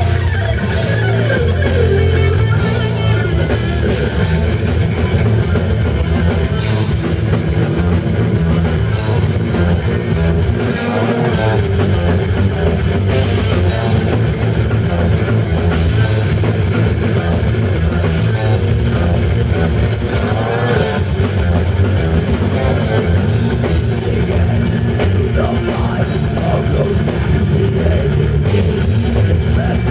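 Live heavy metal band playing loud: distorted electric guitars, bass guitar and drum kit, with a lead guitar line that bends and wavers in pitch in places.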